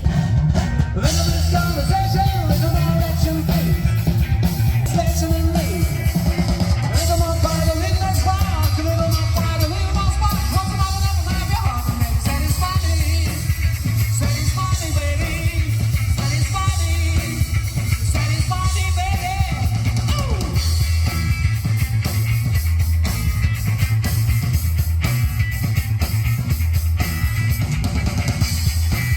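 Loud rock music with drums, guitar and a singing voice over a steady heavy beat; the singing stops about two-thirds of the way through while the band carries on.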